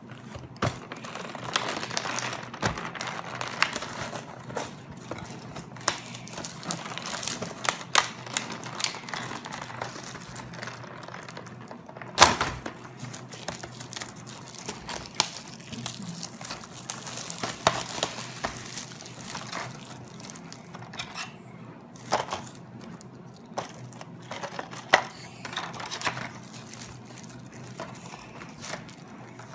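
Foil wrapper of a Kinder Surprise chocolate egg crinkling and tearing as it is unwrapped, with scattered sharp clicks and taps from handling, the loudest a click about twelve seconds in.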